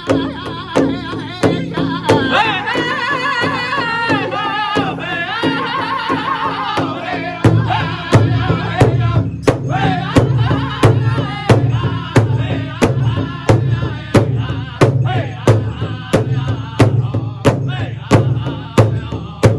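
Powwow drum group: drummers strike a large shared drum in a steady beat, a little over two beats a second, while the singers sing. A high, wavering lead voice comes in about two seconds in, and the fuller, lower chorus of the group joins about halfway through.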